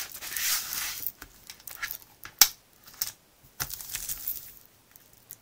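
Crinkling and rustling of a diamond painting canvas's plastic film as the canvas is turned and smoothed flat, in two stretches, with scattered light clicks and one sharp tap about two and a half seconds in.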